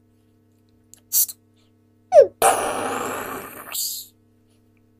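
Cartoon-style blast sound effect: a short falling squeal, then a hissing burst about a second and a half long that fades out, with a brief hiss about a second before it.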